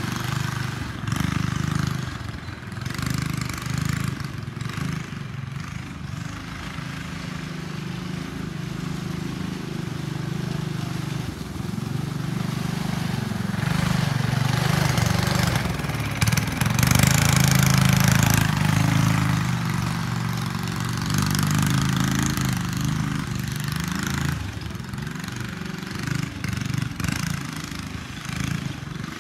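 Go-kart's Honda GX200 single-cylinder engine running as the kart drives around the yard. It grows louder as the kart passes close in the middle and drops back as it moves away near the end.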